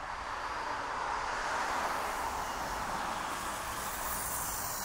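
A road vehicle passing on a city street: tyre and engine noise swells to a peak about two seconds in, then slowly eases off.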